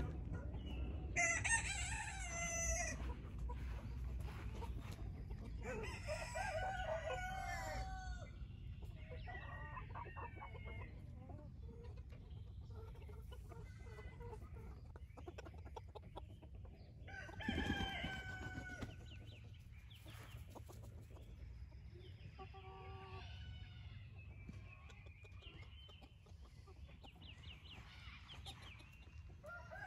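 Backyard chickens: roosters crowing several times, loudest about a second in and again about seventeen seconds in, with softer hen clucks and calls in between.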